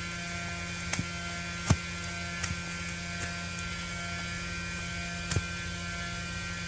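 Septic vacuum truck's PTO-driven vacuum pump running with a steady drone, and a few short knocks about one, two and five seconds in.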